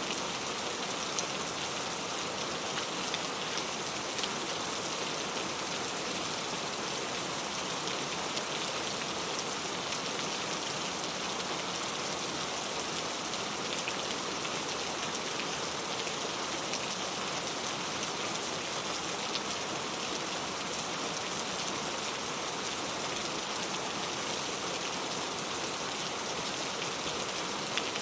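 Steady rain falling, an even hiss of drops with faint scattered individual drop ticks.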